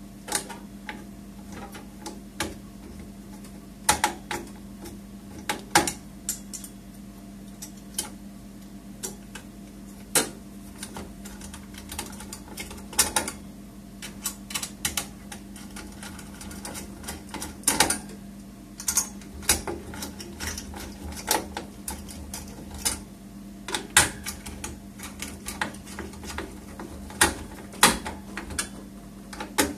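Irregular clicks, taps and knocks of hard plastic and metal parts being handled and fitted inside a desktop PC case as the CPU heatsink is seated, over a steady low hum.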